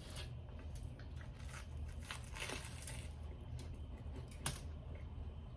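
Crackling, crunchy handling of a toasted fried bologna sandwich close to the microphone as it is picked up and bitten, loudest about two to three seconds in, with a sharp click near the end.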